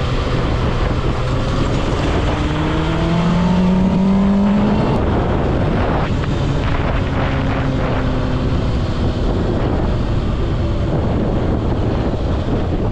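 Kawasaki ZX-6R's inline-four engine under way: it pulls hard with its pitch rising for a couple of seconds, drops sharply about five seconds in, then runs steadier as the bike eases off.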